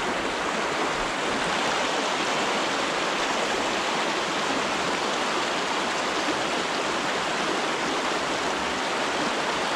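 Trout-stream riffle rushing over rocks close by: a steady, even rush of water.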